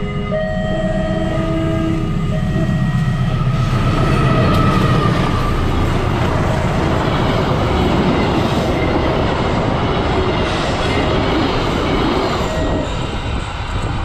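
A diesel-hauled passenger train sounds two short horn blasts, then passes close by: a loud rumble and clatter of wheels on the rails that peaks as the locomotive goes by and fades near the end as the last carriages clear.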